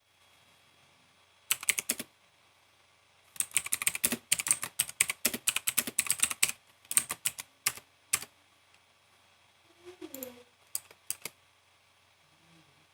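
Typing on a Motospeed GK89 mechanical keyboard with Otemu Blue clicky switches: sharp key clicks in bursts, a short run, then a fast dense run of several seconds, then scattered single keystrokes.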